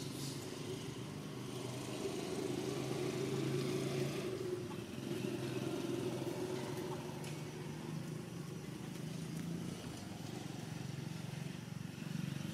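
A motor vehicle's engine running steadily in the background: a low, even hum that grows a little louder between about two and seven seconds in.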